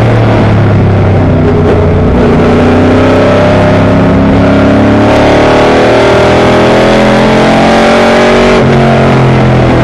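Race car engine heard from inside the cockpit, running hard at high revs under throttle. The note climbs slowly through the middle and changes near the end.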